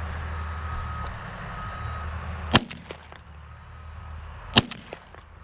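Two shots from a 20-gauge Remington 1100 semi-automatic shotgun, about two seconds apart, each a sharp crack with a short echo, over a low steady rumble that fades after the first shot.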